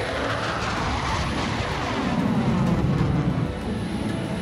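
Fighter jet flying past, a steady jet roar with a falling sweep in pitch early on and loudest, deepest, about two to three seconds in.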